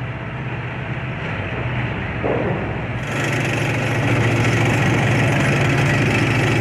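A steady low engine-like drone, growing louder about three seconds in.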